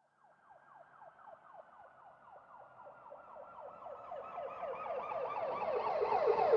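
Police car siren in a fast yelp: rapid repeated falling sweeps in pitch, about six or seven a second. It comes in faintly just after the start and grows steadily louder as it approaches.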